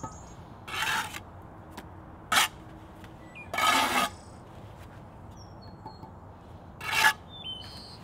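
Bricklaying trowel scraping over mortar and brick in three short rasps, the middle one the longest, with one sharp tap in between. Birds chirp faintly.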